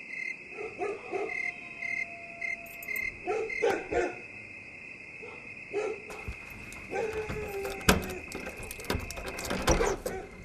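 Night ambience: crickets chirping steadily while dogs bark in short bursts every second or two. A sharp knock about eight seconds in.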